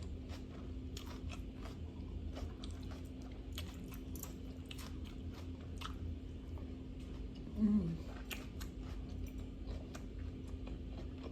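Close-miked chewing of a salad with raw vegetables and salmon: a string of small wet crunches and clicks. A short hummed 'mm' comes just before 8 seconds in, over a faint steady hum.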